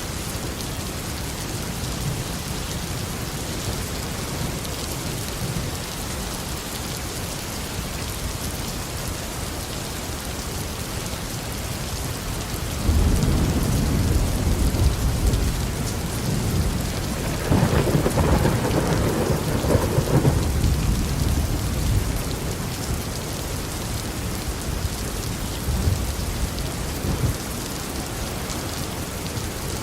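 Steady tropical rain falling, with thunder: a rumble breaks in suddenly about halfway through, swells again a few seconds later and fades, then a smaller rumble follows near the end.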